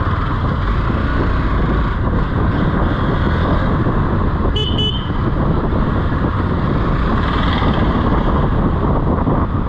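Motorcycle riding through town traffic: steady engine and road noise with wind on the microphone. A vehicle horn beeps twice in quick succession about halfway through.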